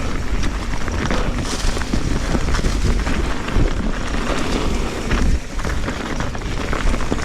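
Mountain bike descending a rough trail at speed: wind buffeting the camera microphone, with the continual rattle and knocks of tyres and bike over rocks and roots.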